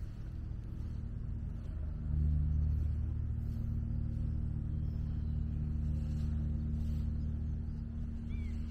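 Low, steady engine rumble of a motor vehicle running close by, growing louder about two seconds in and then holding.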